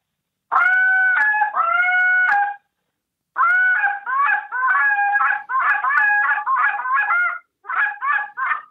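Goose call blown as a contest hail call. Two long honks, each breaking from a high note to a low one, are followed after a short pause by a fast run of honks and clucks, and then a few short clipped notes near the end.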